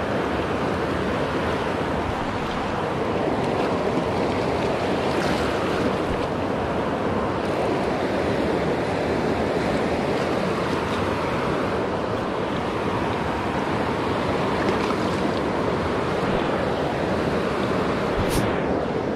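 Shallow river rushing steadily over rocks in a riffle. A short sharp sound near the end.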